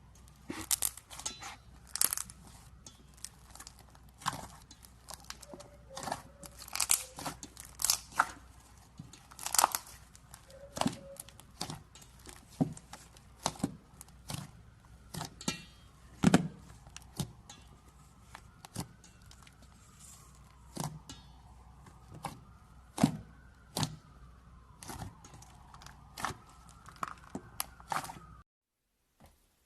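Slime being worked by hand, giving irregular sharp clicks and crackling pops a few times a second; it cuts off suddenly shortly before the end.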